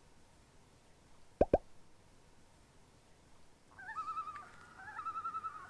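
Two short, loud low pops in quick succession about a second and a half in, then from about four seconds a common loon's tremolo call, a rapidly quavering high tone that wavers on and on.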